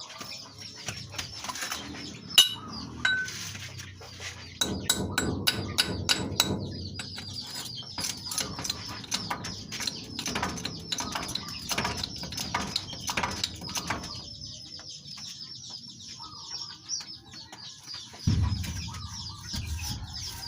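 Repeated metal knocks and clinks of hand tools working on a spring, with a couple of ringing clinks a few seconds in. Birds chirp and chickens cluck in the background.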